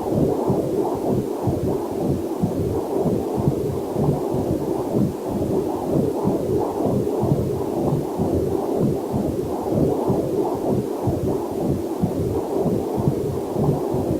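Heartbeat picked up through a fetal Doppler heart monitor: a fast, even rhythm of pulses, a little over two a second, with a faint waterfall hiss mixed in beneath.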